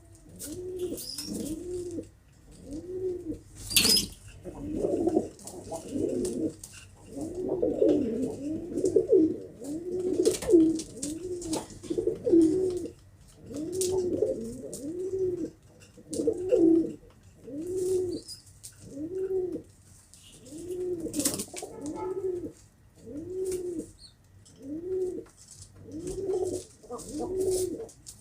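Domestic pigeons cooing: a steady run of low coos, each rising then falling in pitch, about one a second and overlapping at times as several birds call. A sharp click stands out about four seconds in.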